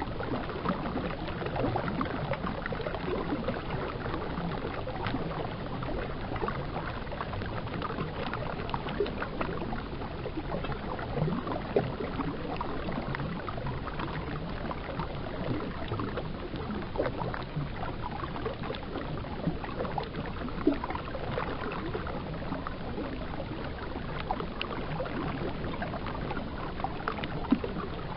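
Steady rush of flowing river water, with scattered small splashes and clicks and a few brief louder ones.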